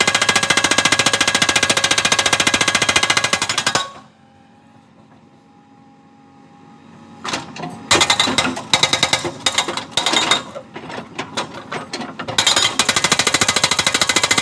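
Rapid, steady mechanical hammering, like a breaker working. It stops about four seconds in, comes back about three seconds later in irregular short bursts, and runs steadily again near the end.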